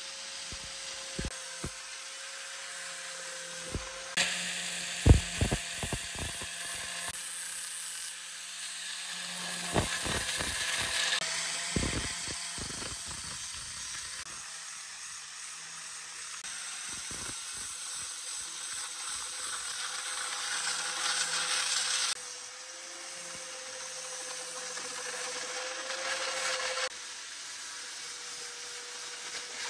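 Angle grinder with an abrasive disc grinding a steel hammer head: a steady motor whine under a loud rasping hiss that swells and drops away as the disc is pressed to the metal and lifted off. There are several sharp knocks and clatters in the first dozen seconds.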